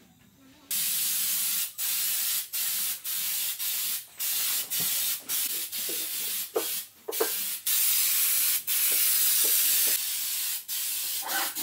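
Compressed-air paint spray gun hissing as it sprays a coating onto a wooden subwoofer cabinet. The spray comes in a string of trigger bursts, from a fraction of a second to about a second long, with brief breaks between them, starting just under a second in.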